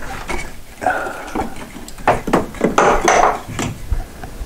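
A wooden block wedged in a hole in a floor framing being wrestled loose and pulled out by hand: a series of irregular wooden knocks, clunks and scrapes, thickest in the middle.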